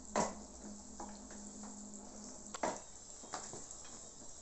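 Hand-lever metal citrus press being worked over a glass jug: a few sharp clicks and knocks of the press, the loudest about a quarter-second in and others about two and a half and three and a quarter seconds in.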